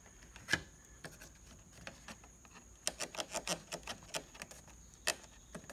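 Plastic door sail trim on a Porsche Boxster 986 being pried off with a plastic trim tool: scattered sharp clicks and creaks of the plastic and its clips. There is one click about half a second in, a quick run of them around three seconds in, and another sharp click near the end.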